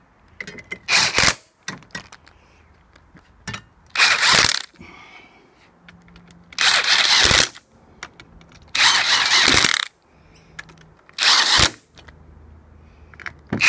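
Socket ratchet driving bolts up into a chain-drive case cover, in about six short bursts of ratcheting a couple of seconds apart.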